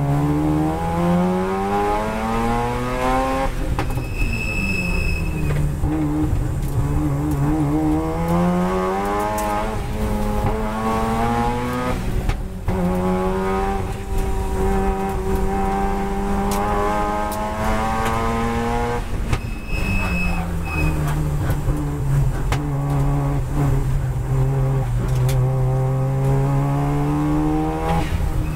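Turbocharged twin-rotor rotary engine of a Mazda RX-7 FD3S race car, heard from inside the cabin under hard acceleration. It climbs in pitch through the revs, drops sharply at each gear change, holds a steady pitch for several seconds in the middle, then falls off about 19 seconds in before climbing again. A brief high squeal comes twice, about 4 seconds in and again about 20 seconds in.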